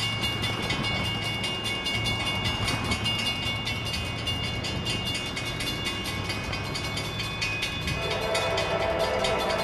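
Two EMD diesel freight locomotives, a GP38-2 leading a GP40-2, running as they approach with a steady engine rumble. Near the end a multi-note air horn starts sounding for the grade crossing.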